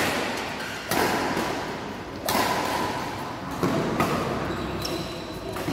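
Badminton rackets striking the shuttlecock during a doubles rally: about five sharp hits, a second or so apart, each followed by echo from the large hall.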